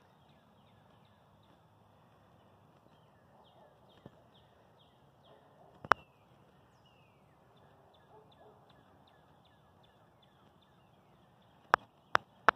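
Birds chirping, a steady stream of short, quickly repeated high chirps falling in pitch. A sharp click about six seconds in and a few more near the end are the loudest sounds.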